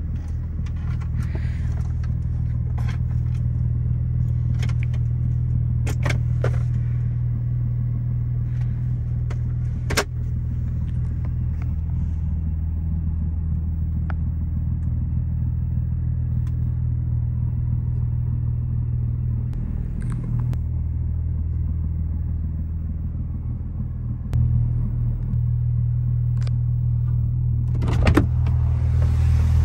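2014 Porsche 911 Turbo S's twin-turbocharged flat-six idling steadily, heard from inside the cabin, with a few sharp clicks of dashboard buttons being pressed. Near the end the interior door handle is pulled and the door latch clicks open.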